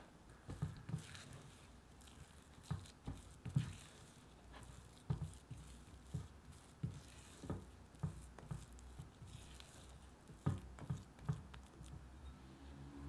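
Silicone spatula folding and pressing thick chocolate cookie dough in a glass bowl: irregular soft knocks about once or twice a second, with light scraping against the glass.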